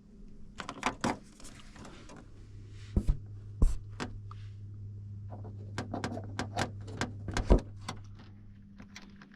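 Metal clicks and knocks of hand tools and hardware as a washer and nut are tightened onto a snowmobile snowflap mount. The clicks come a few at a time at first, then in a quicker irregular run near the end, over a steady low hum.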